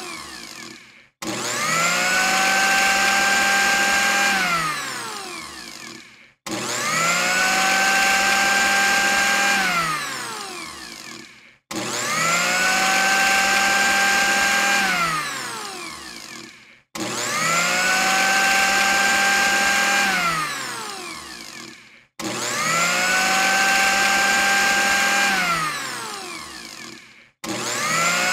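Electric blender motor switched on and off over and over, about every five seconds: each time it spins up to a steady high whine, runs about three seconds, then winds down and stops.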